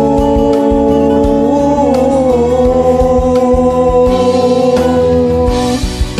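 Karaoke backing track of a slow ballad in an instrumental interlude: long held melody notes over a steady bass line. The held notes end shortly before the close.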